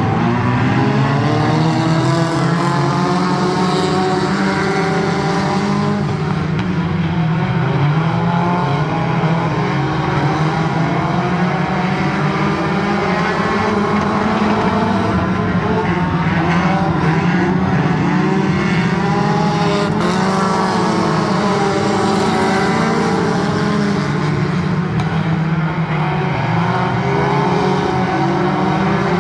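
A pack of compact-class race cars running laps on a dirt oval, many engines at once, their pitches rising and falling as they go around.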